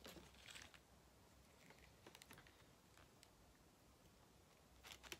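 Near silence: room tone with a few faint clicks, and a slightly louder cluster of clicks near the end.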